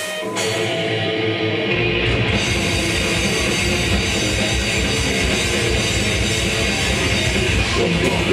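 Live death metal band playing the opening of a song: heavily distorted electric guitars, with the drums coming in about two seconds in as a rapid, pounding kick-drum rhythm under the guitars.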